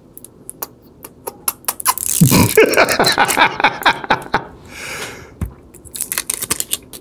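Plastic seal on a lipstick being picked at and torn off by hand: a run of small sharp clicks and crinkles, thickest between about two and four seconds in.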